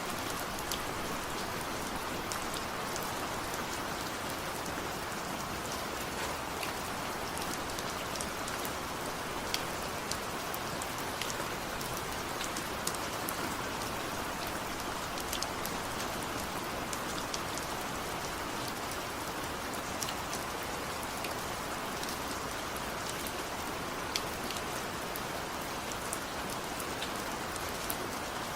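Steady rain falling, an even hiss with many small drops ticking sharply through it.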